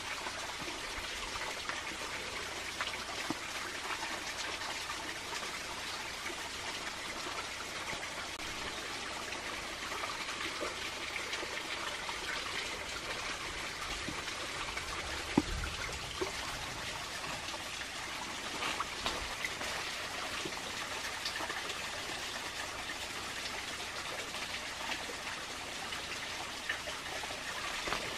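Steady trickle of running water, with scattered light clicks and one sharper knock about fifteen seconds in.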